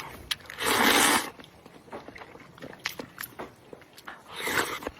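Close-miked eating of spicy noodle soup: chewing with many small mouth clicks, and two loud slurps of noodles, one about a second in and a shorter one near the end.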